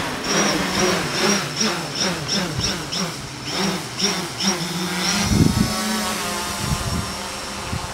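DJI F550 hexacopter's six E305 960 kV brushless motors and propellers humming in flight, a low prop hum with a high motor whine above it. For the first five seconds the pitch wavers up and down about three times a second as the motors speed up and slow down, then it holds steady. There is a brief low thump about five and a half seconds in.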